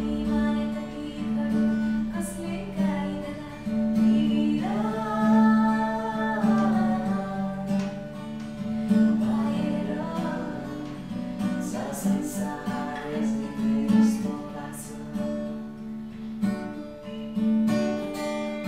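Song with an acoustic guitar strummed and a voice singing a melody over it.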